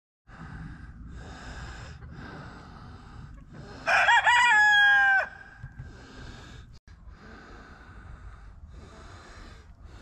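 A rooster crowing once, loud and about a second and a half long, ending on a falling note.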